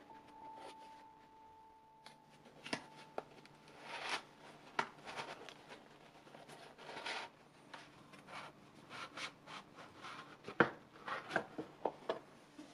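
A cardboard box being opened by hand and a fabric laundry bag slid out of it: rustling and scraping of cardboard and cloth with scattered sharp clicks and rubs. The loudest snap comes about ten and a half seconds in.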